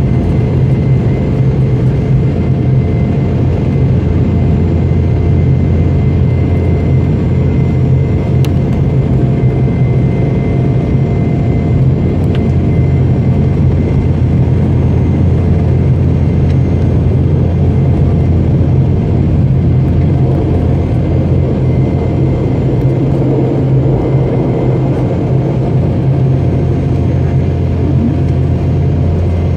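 Cabin noise of a Boeing 717 climbing after takeoff: its Rolls-Royce BR715 turbofans and the airflow make a loud, even rumble with a faint steady whine above it.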